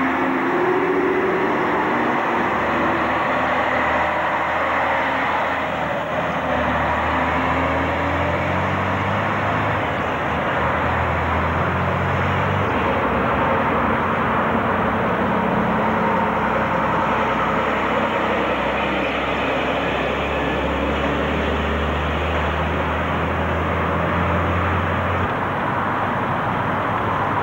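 Heavy articulated lorries' diesel engines pulling away and driving past at close range, one after another. The deep engine note shifts in pitch several times as they accelerate.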